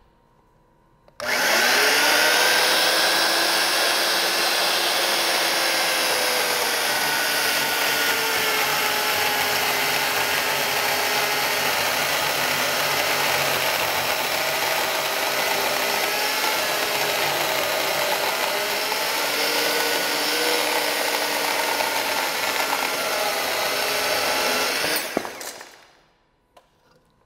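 Skilsaw corded electric carpentry chainsaw starting about a second in and cutting through a thick laminated cedar column, its motor pitch sagging and wavering as it is taxed by the deep cut. Near the end the trigger is released and the saw runs down.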